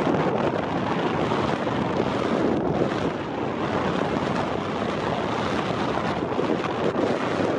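Wind buffeting the microphone over small waves breaking and washing up on a sandy shore, a steady rushing noise.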